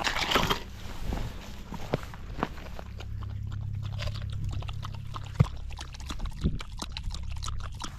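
A dog lapping water from a hole broken in a frozen pond: a string of small wet clicks and splashes, with one sharper click about five and a half seconds in.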